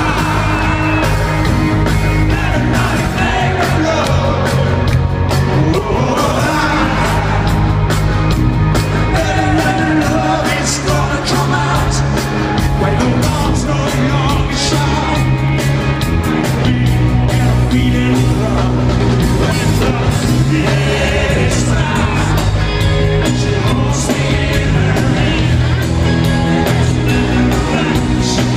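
A rock band playing live in an arena: a singer over drums, bass and electric guitar.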